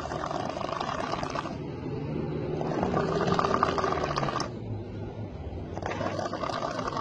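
A man snoring loudly: three long snores, one about every three seconds.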